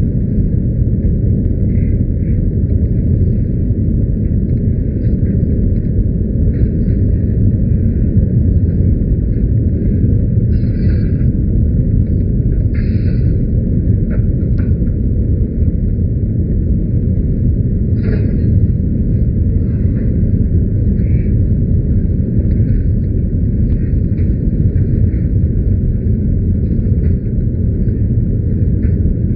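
Steady low rumble of a jet airliner's cabin in cruise flight: engine and airflow noise heard from inside the passenger cabin.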